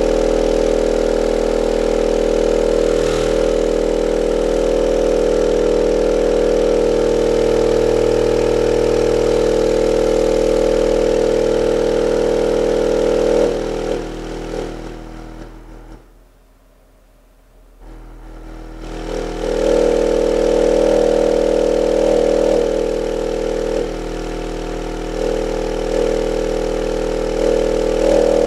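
SKAR SDR 12-inch subwoofer playing a 40 Hz test tone in free air at about 270 watts. It is pushed to its mechanical limits, so the tone comes out as a steady, distorted buzz. About 14 seconds in it fades away for a couple of seconds, then comes back up.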